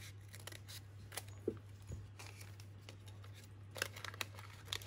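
Scissors snipping the top off a small paper packet, with one sharp snip about a second and a half in. Near the end come light paper rustles and clicks as the packet is opened and handled, over a low steady hum.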